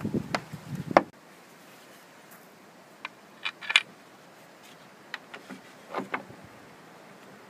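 A few scattered sharp clicks and knocks. The first second has a low rumble that ends in the loudest click.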